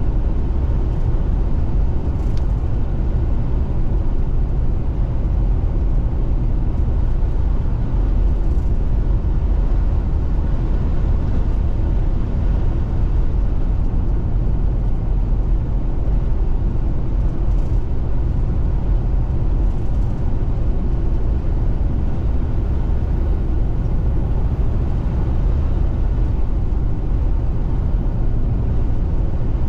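Steady road and engine noise of a car driving along a highway, heard from inside the cabin, heavy in the low end and unchanging.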